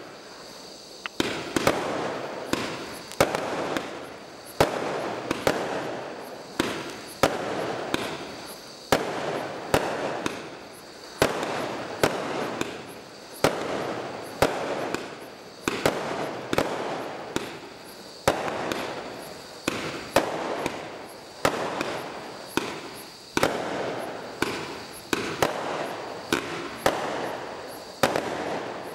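Bright Star Battleship 145-shot barrage cake firing shot after shot, a sharp bang about every three-quarters of a second, each trailing off in crackling. Crickets chirr faintly underneath.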